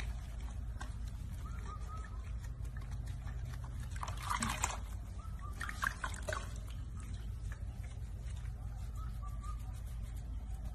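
Water splashing and sloshing in a filled sink as hands wash a baby macaque, with two louder splashes about four and six seconds in, over a steady low hum.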